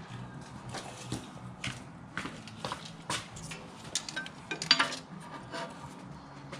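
Irregular metallic clinks and taps, about a dozen over a few seconds: hand tools and a tape measure being handled against metal.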